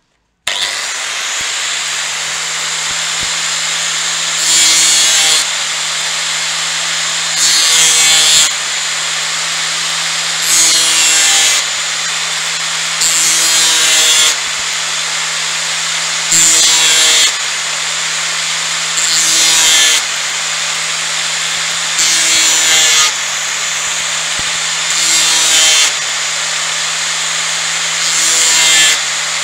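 Makita angle grinder with a sandpaper disc, clamped in a vise, switched on about half a second in and running steadily with a high whine. Nine times, about every three seconds, a steel spear tip is pressed against the disc for about a second, giving a louder grinding rasp as each facet of the tip is sharpened.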